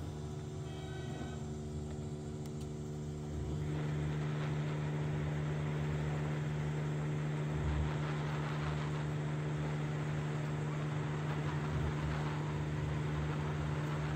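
Hot air rework station running: a steady fan hum, joined about three and a half seconds in by a rushing blast of air that holds steady. The air is being blown over solder paste on a BGA stencil to reflow new balls onto a CPU.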